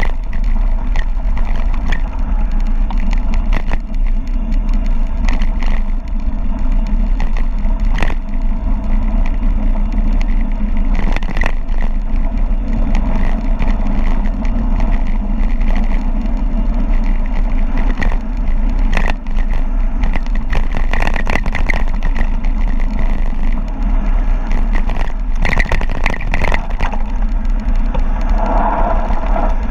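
Wind buffeting the microphone of a camera carried on a mountain bike speeding downhill, a loud steady rumble, with the bike rattling and knocking over a rough trail.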